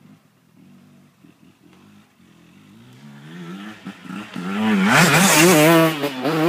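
KTM 150 SX two-stroke dirt bike approaching, faint at first and growing loud, then passing close by about five seconds in. The engine revs up and down as the throttle is worked.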